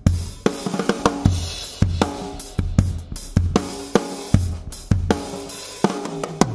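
Acrylic drum kit played as a steady groove: bass drum, snare, hi-hat and cymbals hit in an even, repeating pattern, with the drums ringing between strokes. The sound is picked up by a Yamaha EAD10 drum module's own stereo microphone.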